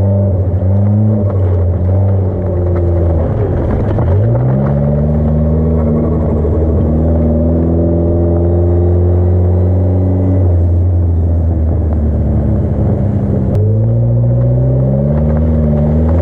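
Mitsubishi Lancer Evolution X build's turbocharged 2.0-litre four-cylinder engine held at high revs, its pitch dropping and climbing again several times, with a sudden rise in revs near the end.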